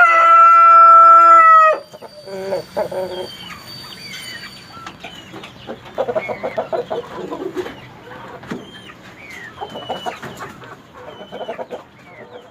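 Domestic chickens: a rooster's crow ends on a long, loud held note about two seconds in. After it come quieter irregular clucking and short high chirps from the flock.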